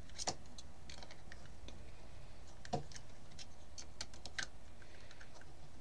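Scattered light plastic clicks and taps as a plastic connector cover is worked back onto a Dyson Airblade's motor housing, with two louder clicks, one just after the start and one near the middle.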